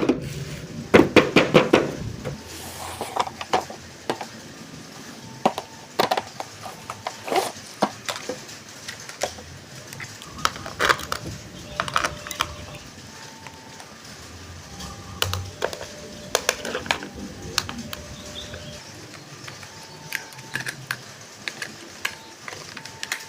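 Toy packaging being handled and opened: plastic and cardboard rustling, with many sharp clicks and taps that are densest in the first two seconds. A few short faint steady tones sound now and then.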